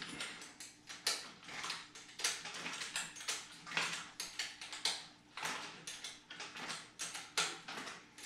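Irregular clicks and scrapes, about one or two a second, of bicycle fender stay hardware being worked and tightened by hand at the front wheel.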